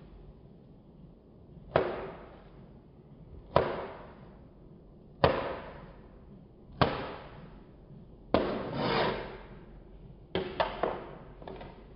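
Kitchen knife cutting mango into cubes on a plastic cutting board: sharp knocks of the blade against the board about every second and a half, one longer drawn-out stroke, then three quick knocks near the end.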